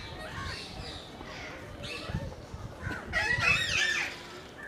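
Birds calling, with a louder run of harsh, pitched calls about three seconds in.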